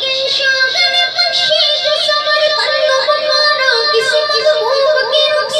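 A boy singing solo into a microphone in a high voice, a flowing melodic line of long held notes that waver and bend in ornamented turns.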